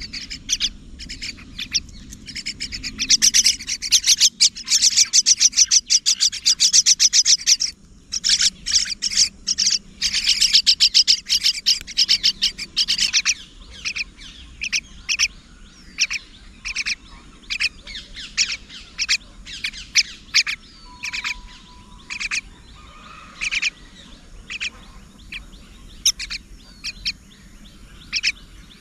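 Mynas chirping: two long runs of rapid, high chirps of several seconds each, then scattered single chirps.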